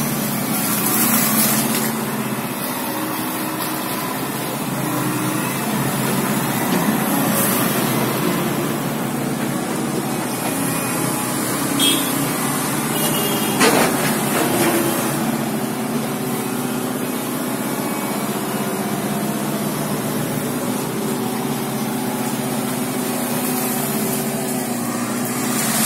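JCB 55Z mini excavator's diesel engine running steadily under load as it digs muck out of a clogged drain, with one sharp knock about 14 seconds in.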